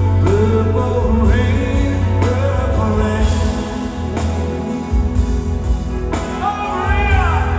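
Live rock band playing a slow ballad, with a male lead vocal sung into a handheld microphone over electric guitar, bass and drums, heard through the arena's PA with heavy bass.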